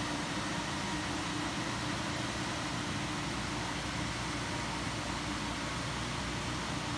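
Sino Star S9 touchless car wash machine running: a steady mechanical hum under a hiss, unchanging throughout.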